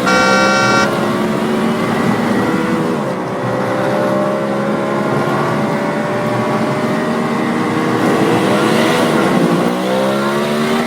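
Racing-car engine sound revving up and down repeatedly in pitch, with a brief buzzy tone right at the start.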